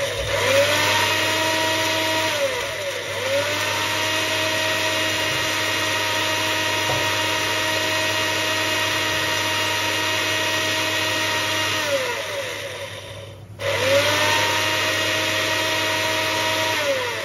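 Moulinex mixer grinder's motor whirring at speed as it grinds garam masala spices to powder in a small grinding jar. It slows and picks up again about three seconds in, runs steadily, then winds down and stops for a moment near the end before starting up again and winding down once more.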